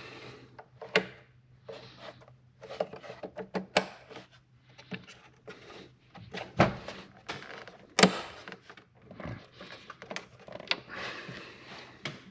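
Irregular clicks, knocks and rustling of hands handling engine parts, lines and connectors, with a couple of sharper clacks a little past halfway.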